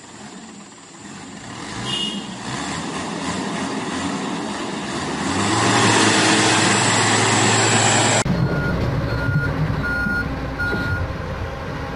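A swelling whoosh of an intro sound effect that builds and cuts off abruptly after about eight seconds. Then heavy machinery engines running from a Hyundai 220 excavator and a dump truck, with four short beeps of a warning alarm about 0.6 s apart.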